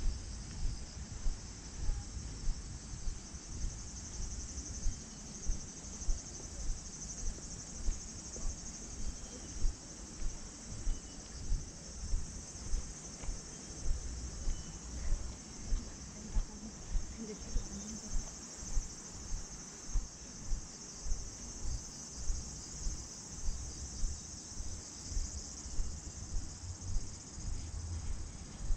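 A steady, even chorus of crickets and other insects singing high up. Over it, walking footsteps on a paved path thud about twice a second, the loudest sound.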